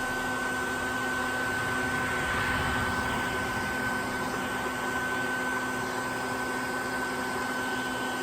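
Colorado Bee Vac running steadily while it sucks up a honey bee swarm: an even vacuum-motor rush with a constant whine.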